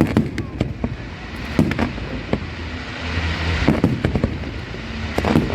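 Fireworks display: a string of sharp bangs from bursting aerial shells, with a sizzling crackle about three seconds in.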